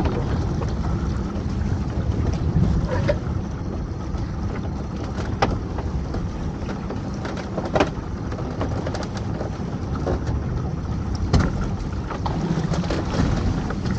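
Small fishing boat's motor running steadily under a string of pots being hauled, with a few sharp knocks and clicks from the rope and hauling gear.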